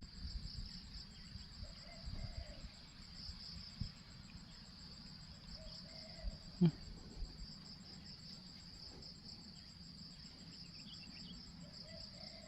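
Insects chirring steadily in a continuous high buzz, with a faint fast pulsing above it. A single short thump comes a little past halfway.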